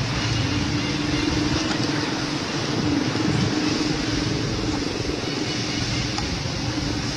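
Steady motor drone: a constant low hum under an even hiss.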